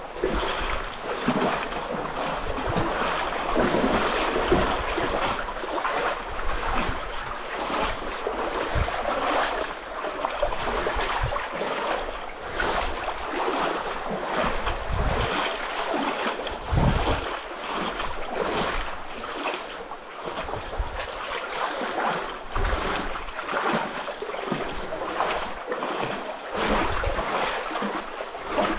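Muddy floodwater in a slot canyon sloshing and splashing steadily as a hiker wades through it, with wind rumbling on the microphone.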